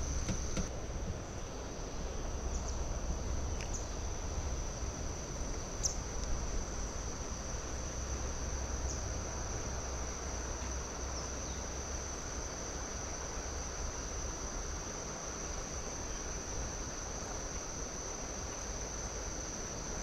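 Insects droning steadily in one high, unchanging pitch, over a low rumble.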